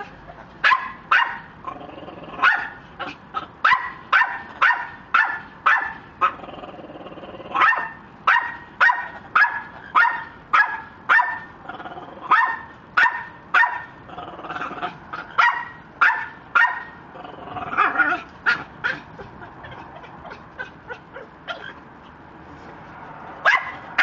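Red-lored amazon parrot barking like a dog: short, sharp calls in long runs of about two a second, broken by a few short gaps and a quieter stretch near the end before one last call.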